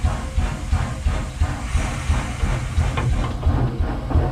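Steam locomotive working along the line, its exhaust chuffing in an even rhythm of about four beats a second over a steady hiss and low rumble.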